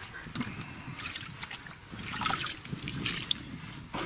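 Shovel blade prying and scraping in wet, waterlogged clay, with mud squelching, water trickling and small irregular clicks.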